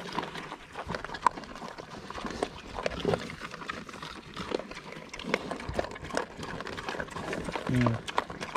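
Pigs feeding at a feeder of cracked corn and pellets: irregular clicks, knocks and crunching throughout, with a short low grunt near the end.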